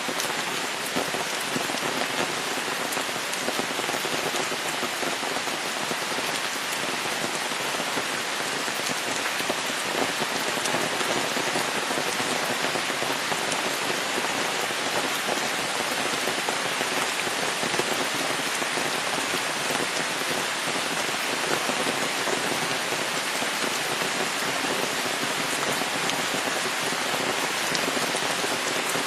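Steady rain falling, an even hiss of many drops that keeps up without a break.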